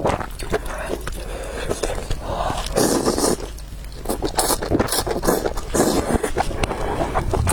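A person eating noodles close to the microphone: chewing with many quick wet smacks and clicks, and a few short slurps spread through.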